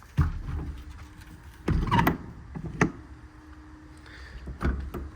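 Compartment doors and latches of a truck's IMT Dominator service body being worked: a handful of separate clunks and latch clicks, the loudest about two seconds in.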